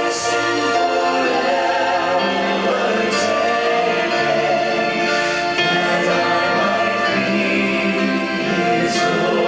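A choir singing a hymn, holding long notes, with short sung consonants now and then.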